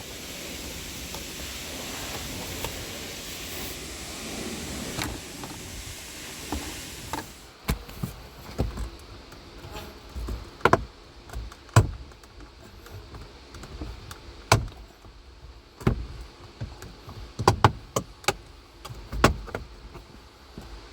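Steady rush of air from the car's AC blower fan that stops abruptly about seven seconds in, followed by irregular sharp clicks and knocks of hand work on the dashboard's plastic and metal parts around the blower motor.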